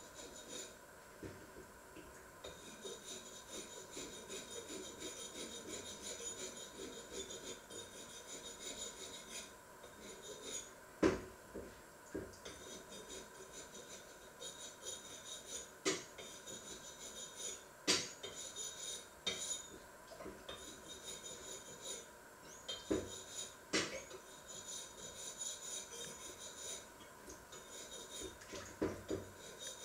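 Faint rubbing and scraping, broken by about half a dozen sharp clicks or clinks, over a faint steady high whine.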